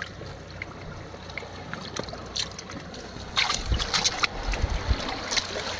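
Shallow seawater sloshing over tidal rocks, with scattered small splashes and clicks, and wind buffeting the microphone in low rumbles in the second half.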